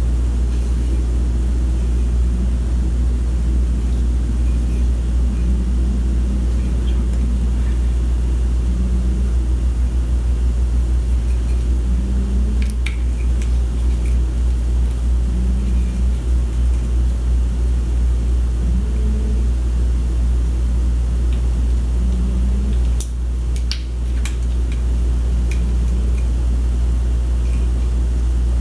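A steady, loud low rumbling hum from a machine running in the room, with a faint pulse about every three seconds. A few light clicks of small tools and parts being handled sound over it.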